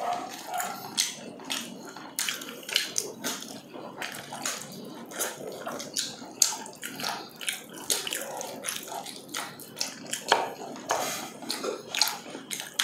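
Wet chewing and lip-smacking of people eating with their hands, picked up close to the mouth: many irregular short smacks and clicks, a few a second.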